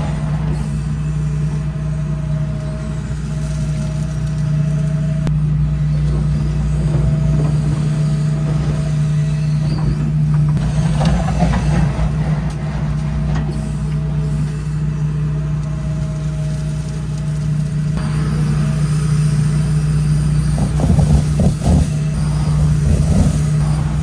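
A John Deere 245 excavator's diesel engine runs steadily under digging load, with a thin hydraulic whine that comes and goes. Twice, about halfway and again near the end, there are bursts of the bucket scraping and dropping soil close by.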